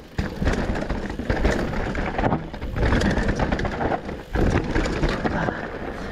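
Mountain bike riding fast down a dirt trail: tyres crunching over the ground, with a run of knocks and rattles as the bike hits bumps.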